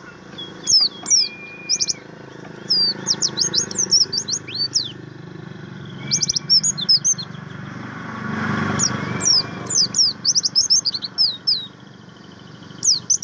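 Pleci buxtomi white-eye singing: several short phrases of rapid, high, sweeping chirps. A low rushing noise swells briefly about two-thirds of the way through.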